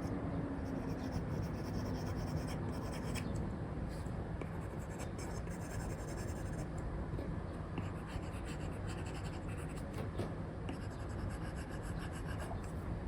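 Stylus nib scratching and rubbing across a paper-like screen film in short, irregular strokes as it draws, over a steady background hiss.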